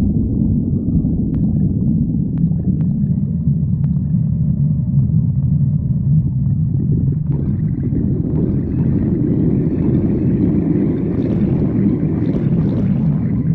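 A hungry stomach growling: a continuous low rumble, with a brighter, higher gurgling joining in from about halfway through.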